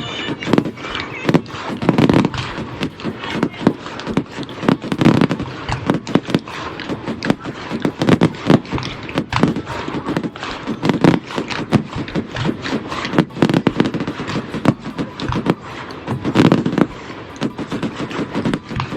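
Aerial fireworks going off in a dense, continuous string of bangs and crackles, with louder volleys every two to three seconds.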